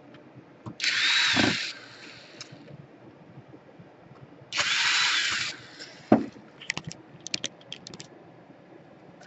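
A small electric screwdriver spinning in two short runs of about a second each, with a whine that rises and falls in each run, as screws are driven into the laptop's case. A quick series of small sharp clicks follows near the end.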